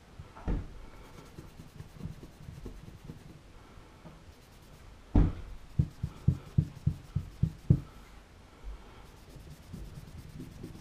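Cloth rubbing and wiping over the metal parts of a field-stripped pistol. There is a dull knock about half a second in, and a run of about eight dull knocks, roughly three a second, starting about five seconds in.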